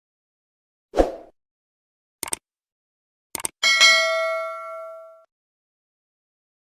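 Edited sound effects: a soft thump, two quick pairs of clicks, then a bright bell-like ding that rings out and fades over about a second and a half.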